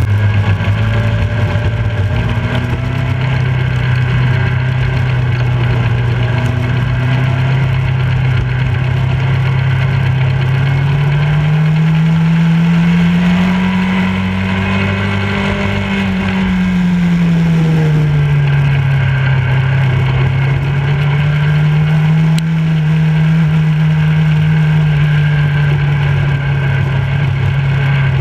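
Motorcycle engine running at road speed. Its note climbs gradually about a third of the way in, peaks about halfway through, drops back a few seconds later and then holds steady.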